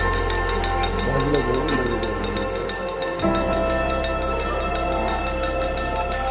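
Music with a fast, steady jingling beat over held keyboard-like chords that change about three seconds in.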